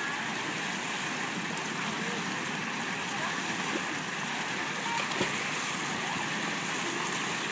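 Steady rush of water running down a wide water slide and pouring into a swimming pool, with faint voices of bathers in the background.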